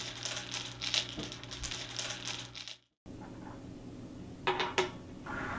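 Rapid, irregular clicking and clacking of small hard objects handled by hand, over a steady low hum; it stops abruptly about three seconds in, leaving quieter room tone with two sharp clicks near the end.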